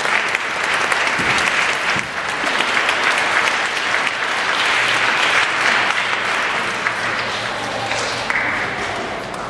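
Audience applauding, a dense spread of hand claps that begins to fade near the end.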